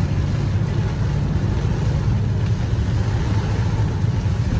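Car cabin noise while driving in heavy rain: a steady low rumble of engine and tyres on the wet road under an even hiss of rain and spray.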